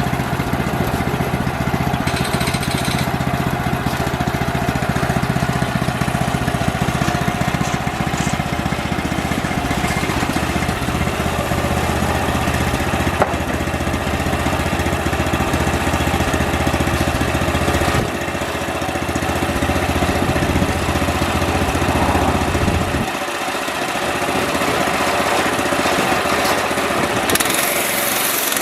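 Homemade band sawmill running on its small engine while sawing a cedar log into slabs. The deep engine tone weakens about 18 seconds in and drops away about 23 seconds in, and a hiss comes in near the end.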